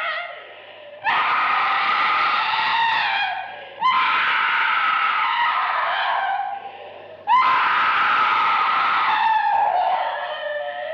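A woman screaming: three long, high screams in a row, each lasting about three seconds, with short breaks between them.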